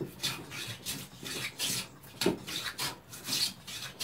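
Towell mitre plane shaving a boxwood edge in short back-and-forth strokes, about two a second, the iron cutting thin shavings; one stroke just past two seconds in is louder than the rest.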